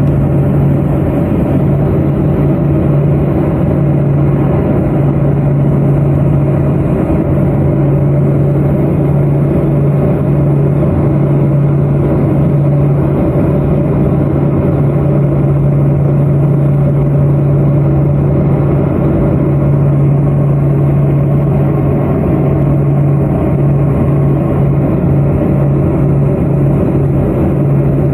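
Let L-410 Turbolet's twin turboprop engines and propellers running steadily, a loud, even drone with a strong low hum over a broad rush of air noise.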